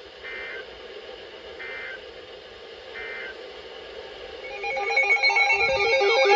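Emergency Alert System SAME digital data tones: three short chirping bursts about a second or more apart, the end-of-message code closing the alert. About four and a half seconds in, a much louder jumble of steady and warbling electronic alert tones begins.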